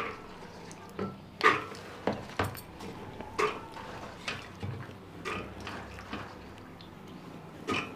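An aluminium pressure cooker and a plastic bowl being handled: irregular clatter and knocks, about eight over the span, the loudest near the start.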